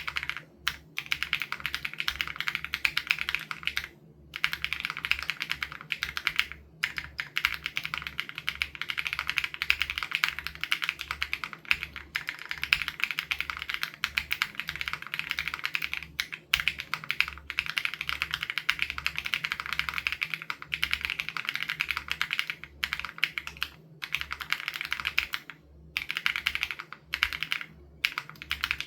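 Continuous fast typing on an SPM AL87B custom mechanical keyboard with BSUN Raw switches: a rapid, dense stream of keystroke clacks with a few brief pauses, stopping near the end.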